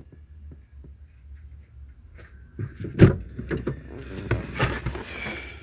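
Handling noises: a run of knocks, clicks and rustling as tools and parts are picked up and moved, with one sharp knock about three seconds in, over a low steady hum.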